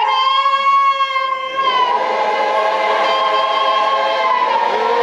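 A woman singing a long held note into a microphone, amplified over the hall's speakers. About two seconds in, the congregation's singing swells in around her into full choral worship singing.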